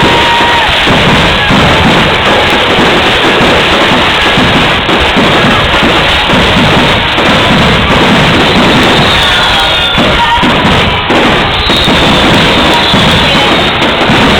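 Fireworks finale barrage: explosions so rapid and loud that they merge into one continuous din and overload the microphone. A few high descending whistles are heard in the second half.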